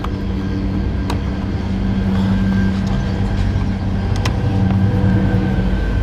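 A motor vehicle engine running steadily, a low hum that grows slightly louder, with a couple of sharp clicks of a screwdriver against the fog light's plastic surround.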